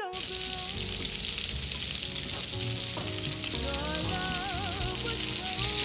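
Lumberjack sausages sizzling steadily in hot fat in a stainless steel frying pan.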